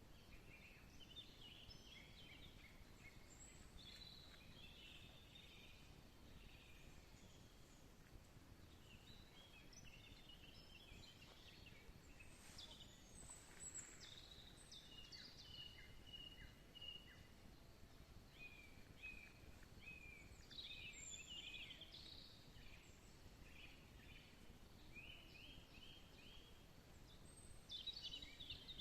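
Faint songbirds singing in short, scattered phrases of quick high notes over a quiet, steady background hiss.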